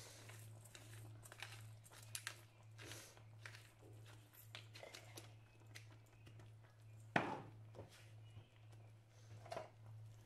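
Pepper mill grinding black pepper, a run of quick crunchy clicks through the first few seconds. A single sharp knock about seven seconds in, and a softer one near the end.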